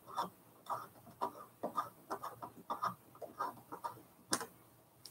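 Small Phillips screwdriver turning the clamp screw of a soundhole pickup in an acoustic guitar: a run of short squeaks about every half second as the screw is snugged up. A sharp click about four seconds in.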